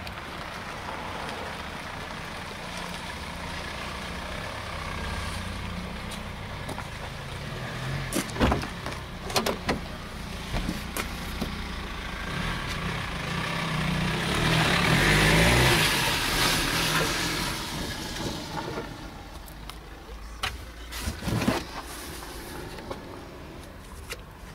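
Boot of a Honda Accord being opened and gone through: sharp clunks of the lid latch and lid about a third of the way in, then more knocks as the boot floor panel is handled near the end. A steady low rumble runs underneath, with a loud rushing swell in the middle.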